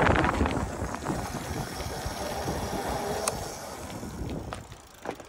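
Razor electric scooter rolling over rough, cracked concrete, its small wheels and frame rattling. The noise dies away as it slows to a stop.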